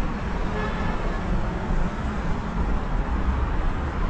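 Steady city street traffic noise: a continuous rumble of cars on the road.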